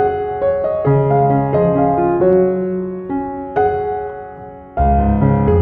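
Background piano music: a gentle melody of notes struck about every half second. Near the end it fills out with deeper bass notes and grows louder.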